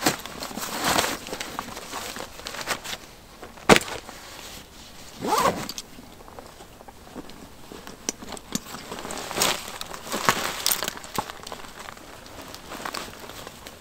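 Scattered rustling, crunching and clicks, with one sharp knock nearly four seconds in and a short swishing scrape soon after.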